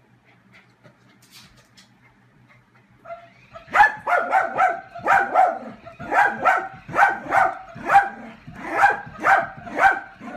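A dog barking: after a few quiet seconds, a fast run of short, high-pitched barks, two to three a second, that keeps going.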